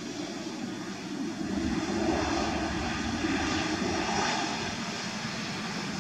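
Jet airliner engines running on the runway: a steady rushing roar that swells from about two seconds in and eases off after four.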